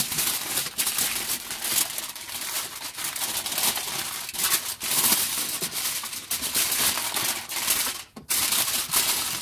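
Aluminium foil crinkling and crackling as it is folded and gathered up by hand, with a brief pause about eight seconds in.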